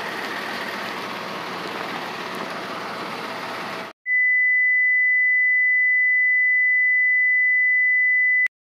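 Railway platform ambience with a passenger train standing by: a steady noisy hiss with faint hum. About four seconds in it drops out, and a loud, steady single-pitch electronic beep tone takes over, held for about four seconds before it cuts off suddenly with a click.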